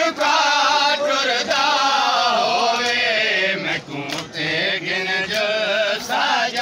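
A group of men chanting a Saraiki wainr lament (noha) together in long, drawn-out sung phrases, with a few sharp slaps, typical of chest-beating (matam), through the singing.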